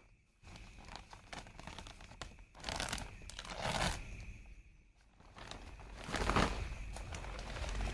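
Plastic packet of quicklime crinkling and being torn open, in irregular rustling bursts, with a low rumble building near the end.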